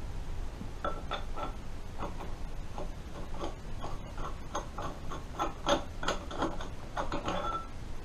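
Irregular light metallic clicks and clinks of a spark-plug tool and plug being fitted and turned by hand down the recessed plug wells of a 1988 Kawasaki ZX-10's engine, with more of them in the second half.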